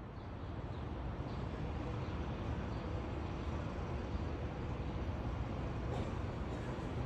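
Steady city ambience: a low rumble of traffic, swelling up over the first second and then holding even.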